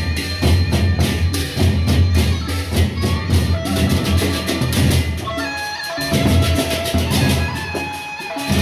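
Gendang beleq ensemble playing: large double-headed barrel drums beaten under a fast, dense clash of hand cymbals, with ringing gong tones held over the rhythm. The deep drum beats drop out briefly about six seconds in.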